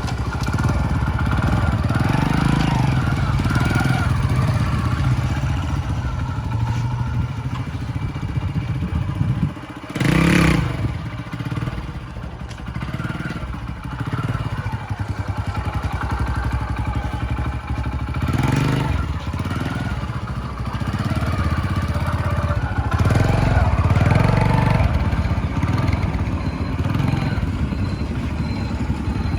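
Modified Honda SS100 motorcycle engine running after a full engine rebuild, its revs rising and falling several times. A short, loud rush of noise comes about ten seconds in.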